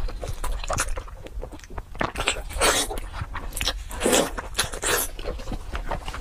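Close-miked eating sounds: biting into and chewing soft, fatty braised pork knuckle, in irregular bites and chews.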